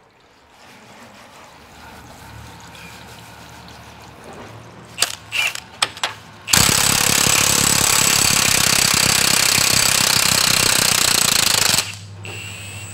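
Cordless impact wrench hammering on a hydraulic cylinder's rod. A few short blips of the trigger come about five seconds in, then a steady run of about five seconds that stops suddenly near the end.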